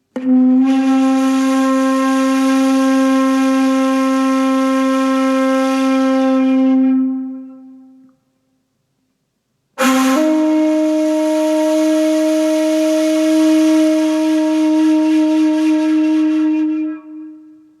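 A wind instrument playing two long held notes, each about seven seconds, the second a little higher than the first, with a breathy hiss over the tone; each note swells in and fades away, with a short silence between them.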